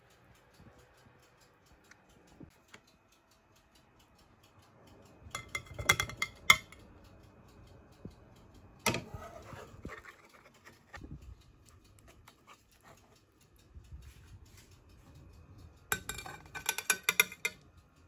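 Clattering of a metal utensil against a frying pan and plate as cooked haddock fillets are lifted out and plated. There are three bursts of ringing clinks and scrapes, about six seconds in, about nine seconds in, and a longer one near the end.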